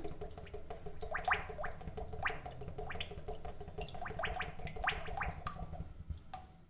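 Refined cooking oil being poured into a heated kadhai, glugging in short, irregular rising gulps over a steady low hum.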